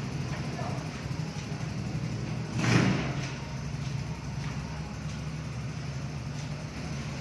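A steady low mechanical hum, with one brief rush of noise about three seconds in.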